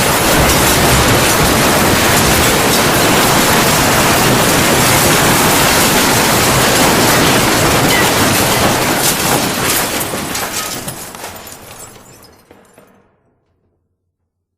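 Crash sound effect: a long, loud, dense clatter of crashing with many sharp cracks, dying away over about three seconds from about ten seconds in.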